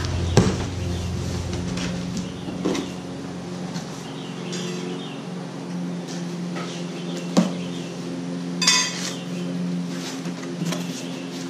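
Lawnmower engine running steadily in the background while a cardboard box is cut open and its flaps pulled back, with a few sharp knocks from handling the box and a brief crackle about nine seconds in.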